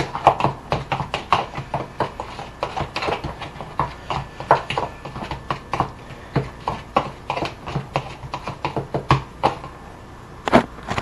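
Metal spoon stirring a thick seasoning paste in a plastic bowl: a quick, uneven run of clicks and scrapes against the bowl, about three or four a second.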